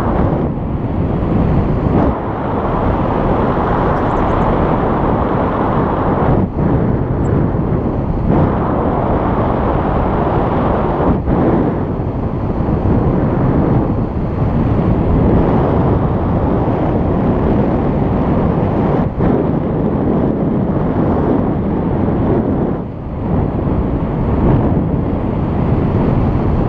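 Wind buffeting a GoPro's microphone in paraglider flight: a loud, steady rumble of airflow with a few brief dips.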